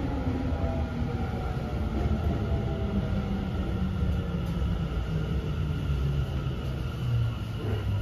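Tokyo Metro 10000 series subway train heard inside the car, slowing for its stop: the traction motor whine falls steadily in pitch over the rumble of wheels on rail. Near the end a fresh higher whine starts and also falls.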